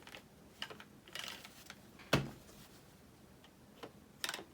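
Scattered light clicks and knocks from hard plastic parts being handled and adjusted on an RC car transmitter's thumb steering adapter, with one sharper knock about halfway.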